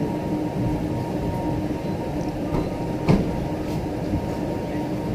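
Inside a new Chinese-built sleeper train carriage as it pulls out of the station: a steady running rumble with a faint even hum, and one sharp knock about three seconds in.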